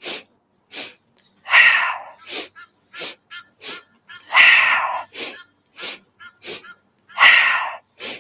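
A woman doing the yoga breath of joy: three short, quick inhalations, then one long, forceful exhalation, repeated about every three seconds. The exhalations are the loudest sounds.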